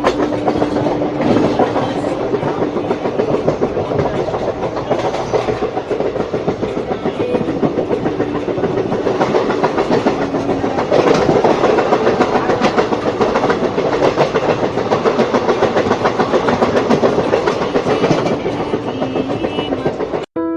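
Amaravati Express passenger train running along the track, its wheels clattering over the rails in a dense, continuous rattle. The sound cuts off abruptly just before the end.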